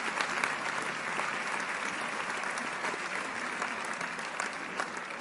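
Audience applauding: a steady patter of many hands clapping that slowly dies down over the last couple of seconds.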